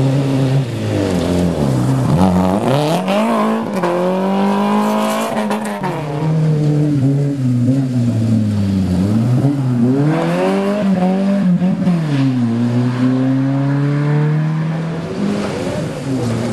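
Race car engines revving hard as the cars come through one after another, the engine note climbing and dropping again and again with gear changes and lifts off the throttle.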